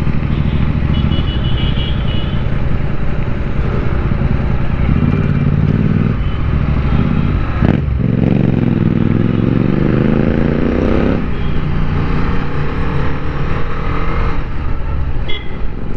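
Motorcycle engine running. In the middle its pitch climbs steadily for about three seconds, then drops suddenly, as a rider accelerating through a gear would make it, with a single sharp knock just before the climb.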